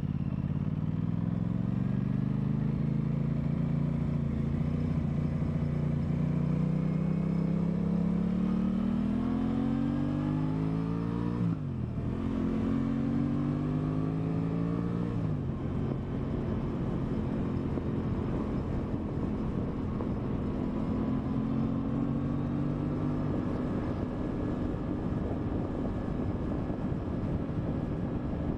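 2023 Aprilia Tuono 660's parallel-twin engine pulling hard, its pitch rising steadily through a gear for about eleven seconds. A quick-shifter upshift cuts the note sharply downward, and it climbs again. About fifteen seconds in the pitch drops again, and the engine settles into steady cruising with rushing noise underneath.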